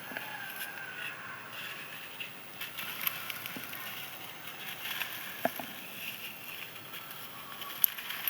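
Crispy dry sand-cement crumbling and crunching, with a few sharp cracks as pieces break.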